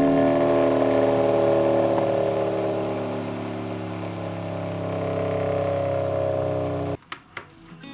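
Electric motor running steadily as it spins a disc of magnets: a constant hum and whir with several steady tones. It cuts off suddenly about seven seconds in, leaving a few faint clicks.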